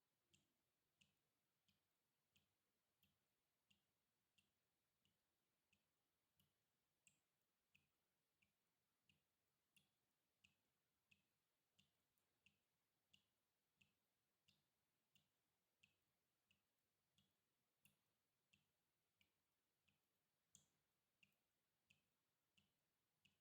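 Water dripping at a steady, even rhythm, about one and a half drops a second. Each drop is a faint low plop with a higher plink, and one drop near the end is louder.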